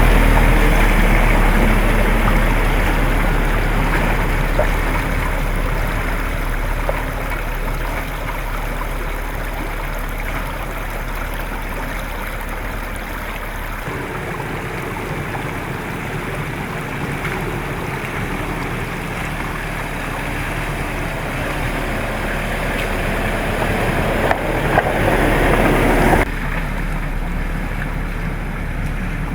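2012 Land Rover Defender 90's diesel engine running as the vehicle wades through a shallow stream, over the steady rush and splash of water. The engine's low hum is strongest at the start and fades, and the sound changes abruptly about fourteen seconds in and again near the end.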